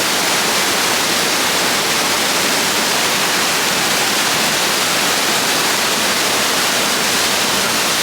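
Waterfall rushing: a steady, loud wash of falling water that does not change.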